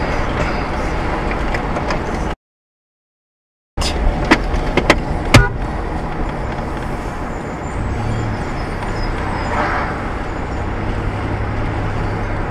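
Steady road and engine noise of a car driving, heard from inside the cabin, broken by about a second of dead silence a little after two seconds in. A few sharp clicks follow soon after.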